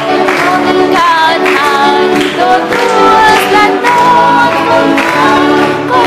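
A group of voices singing a hymn of praise together over instrumental accompaniment, the melody held in long notes with vibrato.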